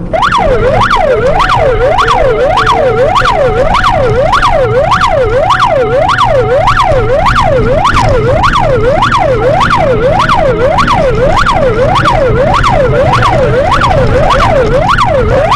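Electronic siren in a fast up-and-down yelp, about two rises and falls a second, loud and unbroken, with a steady held tone sounding alongside it for several seconds in the first half and a low engine hum underneath.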